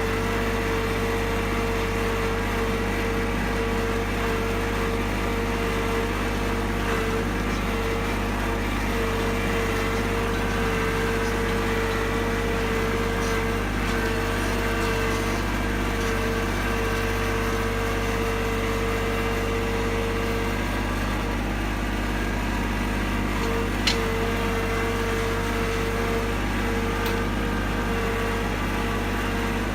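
An engine running steadily at an even speed, with one short click about 24 seconds in.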